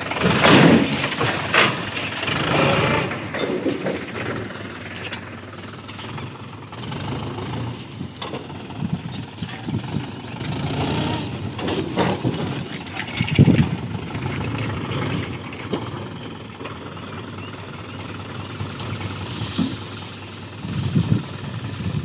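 Mahindra tractor's diesel engine running steadily while its tipping trolley is raised to dump crop straw, with sharp knocks and clanks now and then, the loudest about thirteen and a half seconds in.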